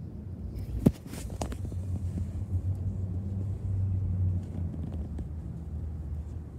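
A steady low rumble, with one sharp click about a second in and a few lighter clicks just after it.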